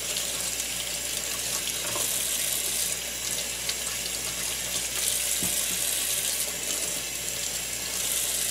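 Kitchen faucet running into a stainless steel sink as small fish fillets are rinsed one at a time under the stream; the splashing shifts now and then as the hands move the fillets through the water.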